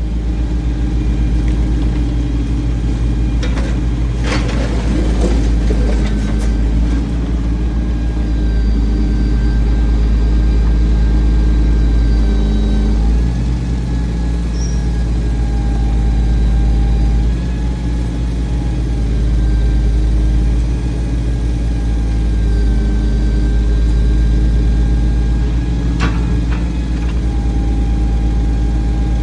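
A heavy engine running steadily, its pitch shifting slightly a few times as the load changes. A cluster of sharp knocks comes about 4 seconds in, and two more near the end.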